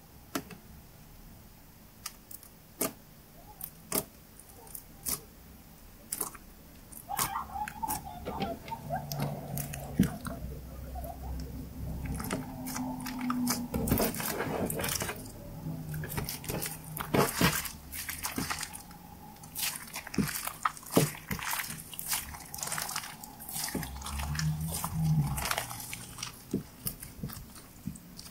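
White slime being poked, pressed and stretched by hand, making sticky, wet clicks and pops. They are sparse at first and come thick and fast from about seven seconds in.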